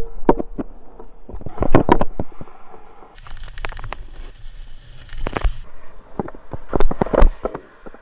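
Snowboard scraping and chattering over packed snow, heard through a chest-mounted action camera, with irregular knocks and rubbing on the camera. The loudest knocks come about two seconds in and again around seven seconds.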